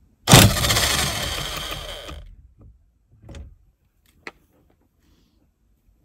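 Plug-in (corded) Hyper Tough electric impact wrench hammering for about two seconds, breaking loose and running out the steering wheel retaining bolt. It starts abruptly and loud, then fades. Two small knocks follow.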